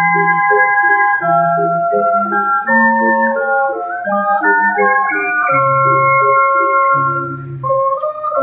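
An ocarina ensemble, with ocarinas of different sizes, plays in several parts: clear, steady held notes in the upper voices over a lower bass line.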